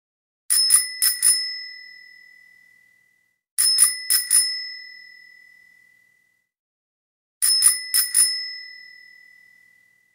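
Bell sound effect of a subscribe-button animation: a small bell rung in three bursts of four quick dings, about three to four seconds apart, each burst ringing out and fading.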